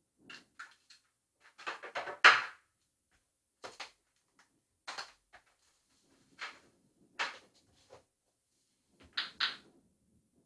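Short, irregular crackles and pops from the Kano computer kit's speaker as the Raspberry Pi 3-based computer powers up, roughly one every second or so, with the loudest cluster about two seconds in.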